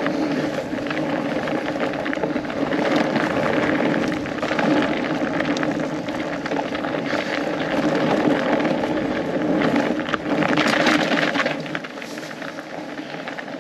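Fat bike with studded tires rolling downhill over a frozen, snowy trail: a steady rush of tire and wind noise full of small crackles and rattles, growing quieter about twelve seconds in as the bike slows.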